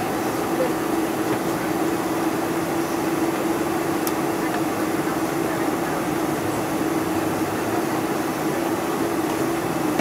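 A Boeing 747-400's GE turbofan engines running at taxi power, heard inside the cabin as a steady hum with one held low tone, even in level throughout as the jet turns onto the runway.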